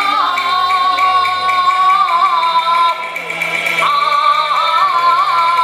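Live Cantonese opera music: a high held melodic line with wavering ornamental turns, over steady sustained accompaniment.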